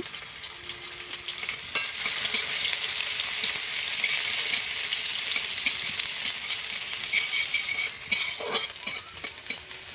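Chopped onion sizzling in hot mustard oil in a metal karai, stirred with a metal spatula that clicks and scrapes against the pan. The sizzle grows louder about two seconds in and eases near the end.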